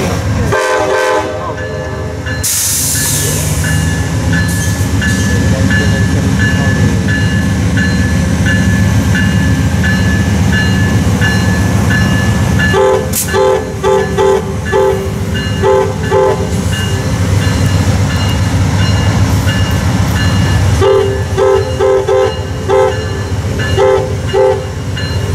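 Amtrak passenger train's diesel locomotive sounding its horn: a blast at the very start, then two clusters of short, repeated blasts about eight seconds apart, over the steady low rumble of the train.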